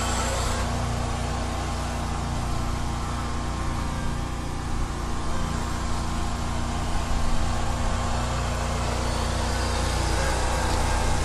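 Engine of a small ride-on double-drum asphalt roller running steadily.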